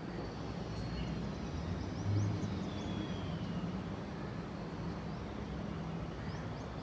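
Outdoor city ambience: a steady low rumble of distant traffic with a low hum, and a few faint high chirps.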